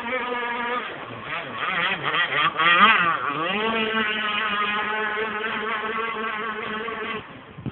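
Petrol two-stroke engine of an RC model powerboat buzzing at speed; its pitch swoops down and back up between about one and four seconds in, then holds steady, and it fades near the end.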